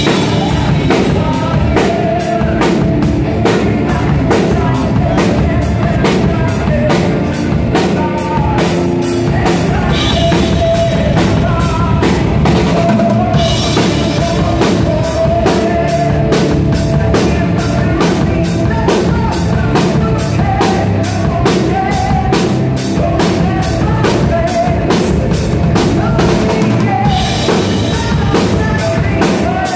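Live power metal band playing loudly: a fast, steady drum-kit beat with bass drum and cymbals under distorted electric guitar, with a male singer on the microphone.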